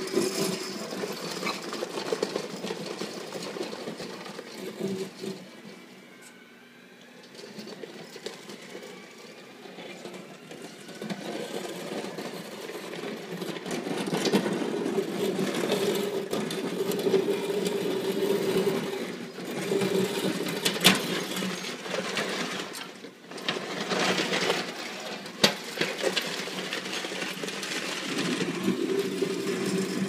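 Electric wheelchair drive motors and gearboxes whining as a small remote-controlled plow vehicle drives and pushes snow. The whine fades for a few seconds early on, with a faint rising whine, then builds back up and stays loud, with a couple of sharp knocks in the second half.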